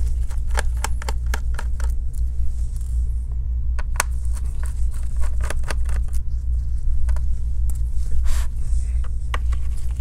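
Small Phillips screwdriver backing out screws from a Dell Inspiron 16 7620's aluminium bottom cover: irregular light clicks and ticks of the bit in the screw heads, over a steady low hum.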